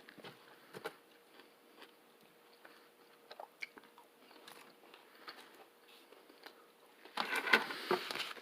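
A person chewing a fried chicken sandwich close to the microphone, with soft, scattered mouth clicks, then louder noisy eating sounds near the end.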